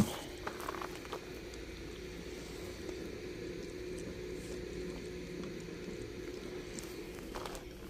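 Steady background noise with a faint constant hum, and a sharp click right at the start.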